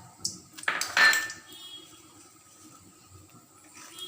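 A metal utensil clattering against a kadai a few times, loudest about a second in, followed by a brief ring from the metal.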